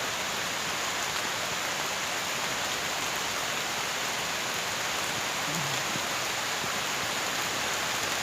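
Steady rain falling on rainforest foliage: an even, unbroken hiss of many drops on leaves.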